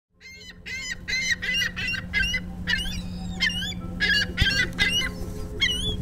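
Gulls calling repeatedly in a rapid series of short, wavering cries, over a steady low hum.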